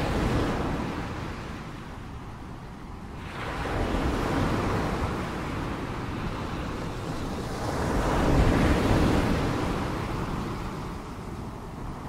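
Ocean waves washing in and drawing back, a steady rush of surf that swells three times, about four seconds apart.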